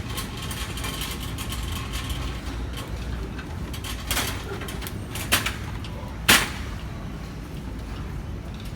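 Steady low rumble and hum of a large store, with three short sharp knocks, about four, five and six seconds in, the last the loudest.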